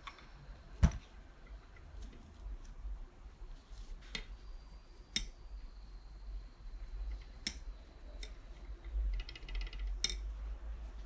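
Metal clinks and knocks from handling the cylinder and crankcase of a Piaggio Si moped engine. A sharp knock about a second in is the loudest, a few lighter clinks follow, and a short quick rattle comes near the end.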